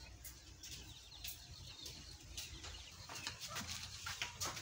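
Faint bird calls, with scattered light clicks and taps over a quiet background.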